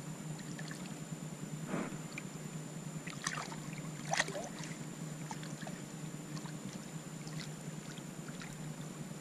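Lake water sloshing, with a few short splashes, as a large common carp is held in the shallows and released. A steady hiss and hum runs underneath.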